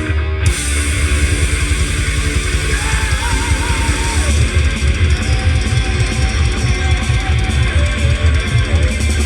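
Heavy rock music with distorted electric guitars over bass and drums, broken off for a moment right at the start. A lead guitar holds a wavering, vibrato note in the middle.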